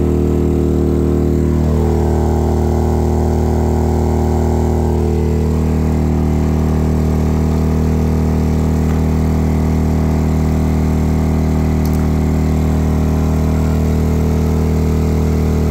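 Maxpeedingrods MXR3500 inverter generator's engine running steadily under heavy load.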